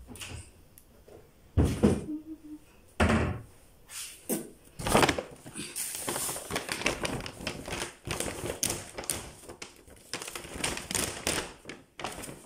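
Groceries being packed away by hand: three heavy thumps as items are set down in the first few seconds, then a busy run of clattering and rustling.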